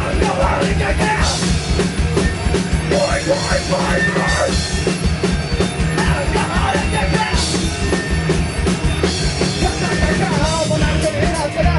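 Loud rock music with a driving drum kit and dense full band.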